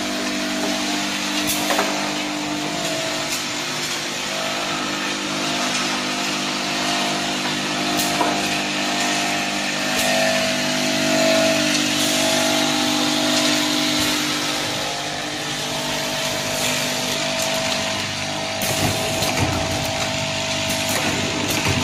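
Automatic bottle filling and screw-capping machine line running: a steady motor hum and whine with scattered sharp mechanical clicks, which come closer together near the end.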